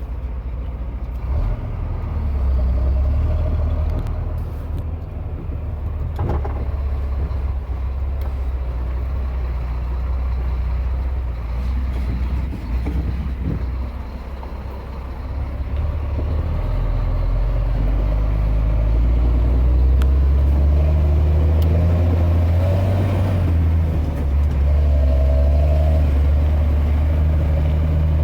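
Scania G 380 truck's diesel engine working hard as the truck pulls through mud, a deep steady note that grows louder and heavier a little past halfway.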